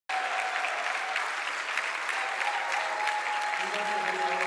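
A roomful of people applauding, the clapping cutting in suddenly and going on steadily; from about two and a half seconds in, a few long held tones sound over it.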